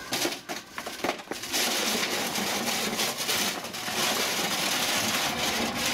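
Paving bricks tipped out of a wheelbarrow: a few separate knocks at first, then from about a second and a half in a dense, continuous clatter of bricks sliding and tumbling onto the pile.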